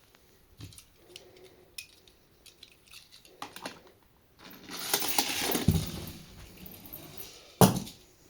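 Die-cast toy cars being handled, with light clicks and clinks. Partway through, a rattling slide lasts about two seconds, and near the end there is one sharp knock.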